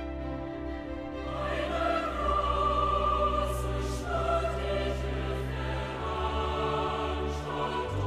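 Slow background music of long held notes, swelling louder about a second and a half in.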